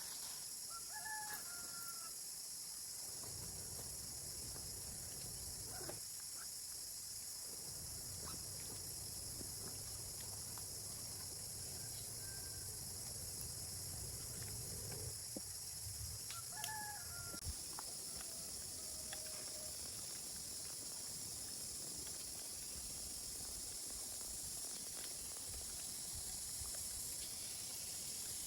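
Steady high outdoor hiss, with a short bird call twice: about a second in and again just past the halfway point.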